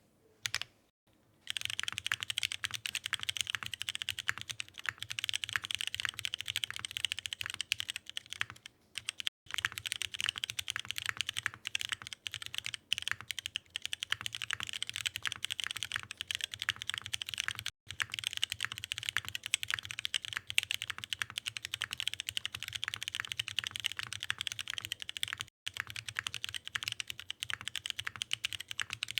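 Continuous fast typing on a mechanical keyboard with Cherry MX2A Brown tactile switches on a polycarbonate plate with no foam, DCS-profile keycaps clacking, with a few short pauses. The typing starts about a second and a half in.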